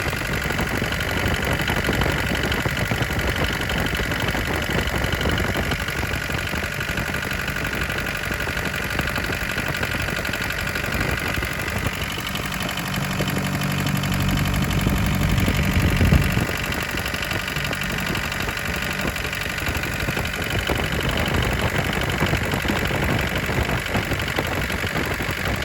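1981 Isuzu Pup's C223 four-cylinder diesel engine running at idle. About 13 seconds in, its note deepens and grows louder, then drops back abruptly about 16 seconds in.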